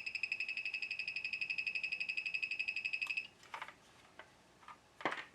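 dbx CT3 cable tester beeping: a rapid high pulsing tone, about a dozen pulses a second, that cuts off suddenly about three seconds in, followed by a few light clicks of connectors being handled. The beep sounds while the red RCA conductor checks good.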